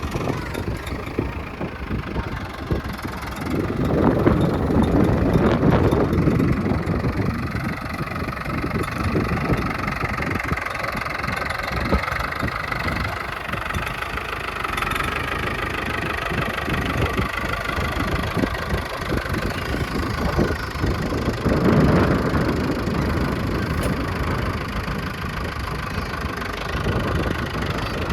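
A vehicle engine running steadily, swelling louder twice, around four to six seconds in and again near twenty-two seconds.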